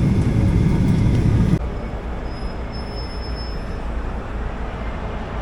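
Steady low rumble of an airliner's cabin noise, cut off abruptly about a second and a half in and replaced by a quieter steady background hum with a faint high whine.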